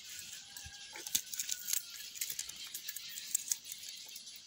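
A few light clicks and rattles of ingredients being handled, over faint bird calls and chirping in the background.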